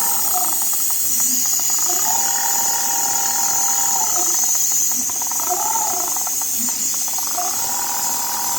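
Rotary-head leather sewing machine run in short bursts: its motor whines up to speed, holds for about two seconds and winds down, several times over, with light mechanical clicking, over a steady high hiss.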